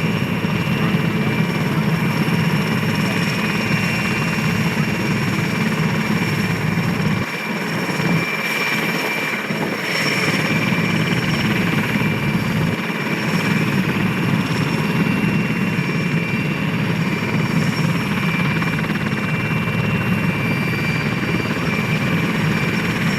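Aérospatiale SA-330L Puma helicopter taxiing, its twin turboshaft engines and rotor running steadily: a high, even turbine whine over dense rotor noise.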